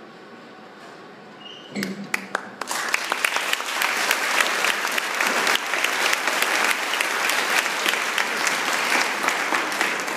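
Audience applauding: a few scattered claps about two seconds in, quickly swelling into dense, steady applause.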